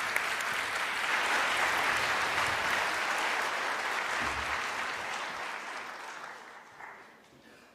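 Large audience applauding, a dense steady clapping that fades away over the last two or three seconds.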